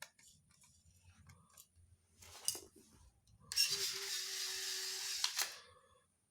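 Small electric motor of a toy robot running in a steady whir for about two seconds, starting and stopping abruptly, with a few faint clicks and taps before it.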